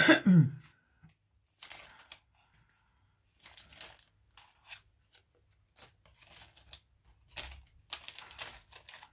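A brief voice sound right at the start, then on-and-off rustling and crinkling of paper as craft items and paper pouches are handled and moved about.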